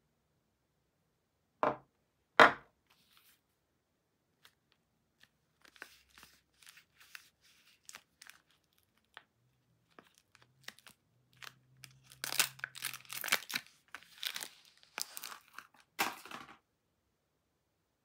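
Two sharp knocks on a wooden tabletop, as a bar of soap is set down, about two seconds in; then the paper wrapper of a Duru soap bar crackling softly and tearing as it is unwrapped. The tearing and crinkling is loudest and densest in the second half and stops a second or so before the end.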